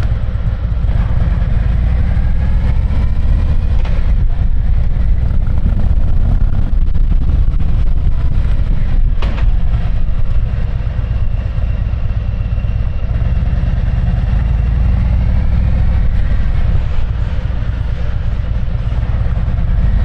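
Harley-Davidson Street Glide's V-twin engine running under way through a Jekill & Hyde exhaust, a steady deep pulsing rumble, with a brief sharp click about nine seconds in.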